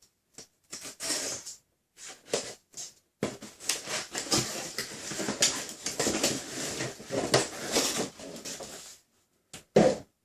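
A cardboard blaster box being opened and its contents handled: scattered taps and scrapes at first, then about three seconds in a long stretch of dense rustling and crinkling of cardboard and packaging that dies down near the end, with a couple of knocks.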